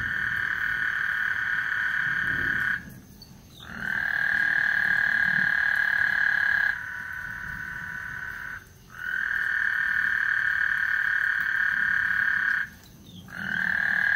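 Frogs calling in a chorus: long, steady, high-pitched trills of about three seconds each, broken by short pauses around three, eight and a half and thirteen seconds in, with a fainter call filling one of the gaps.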